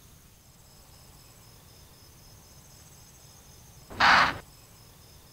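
An impala ram's single sharp alarm snort about four seconds in, a short blast of breath lasting under half a second: the sign that it has sensed the hunters and will flee. Insects chirr steadily in the background.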